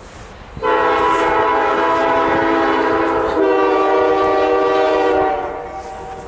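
Norfolk Southern locomotive air horn sounding one long chord-like blast that starts about half a second in, its tone shifting slightly partway through, and stopping about a second before the end, leaving the train's running noise.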